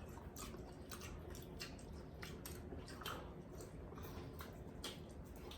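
Faint close-up eating sounds: wet chewing and squishing with small irregular clicks.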